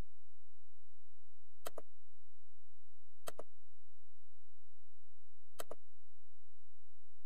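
Computer mouse clicking three times, each click a quick pair of snaps, over a steady low hum.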